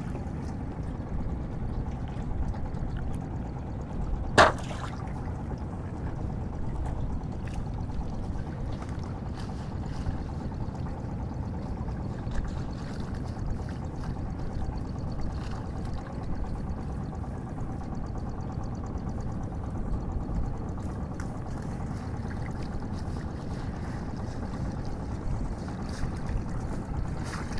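Water splashing and pouring around a small river fishing boat, with one sharp knock about four seconds in.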